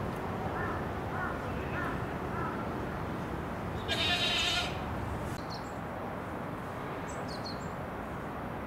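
A short, loud animal cry of under a second, about four seconds in, over a steady background hiss, with a few faint high chirps after it.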